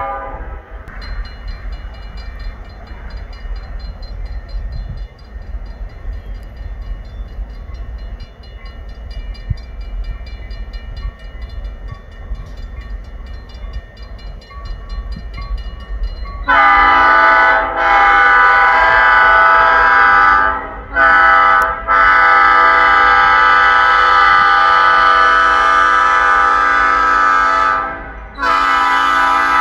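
Grade-crossing warning bells ring rapidly and steadily under the low rumble of an approaching diesel freight locomotive. About halfway through, the Canadian National locomotive's air horn sounds loudly in long blasts: a long one, a short one, then two more long ones, for the crossing.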